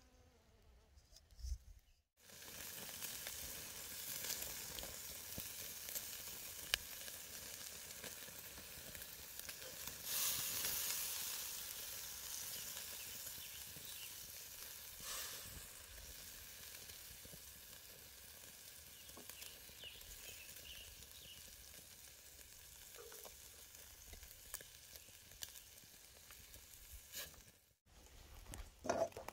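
Food frying in a hot pan, a steady sizzle with scattered pops that swells louder for a moment near the middle. It starts and stops abruptly.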